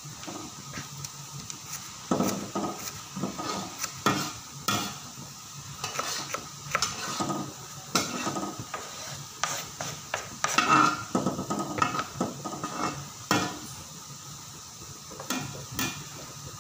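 Sumenep shallots frying in oil in a large aluminium wok, a steady sizzle under the irregular scrapes and clinks of a metal spatula stirring them against the pan. The stirring eases for a moment about three-quarters of the way through.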